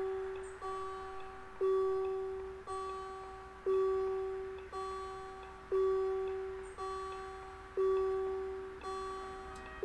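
Level-crossing warning bell ringing, about one strike a second, alternating a louder and a softer strike, each ringing out before the next, while the crossing's red warning lights are on.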